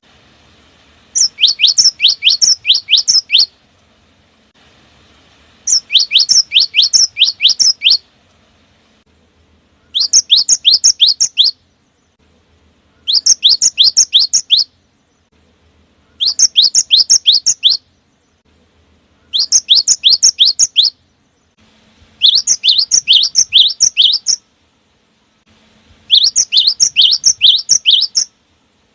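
Cinereous tit (gelatik batu) singing loud, ringing phrases. Each phrase is a rapid run of sharp, downward-slurred notes lasting about two seconds, and eight phrases come one after another with short pauses between them.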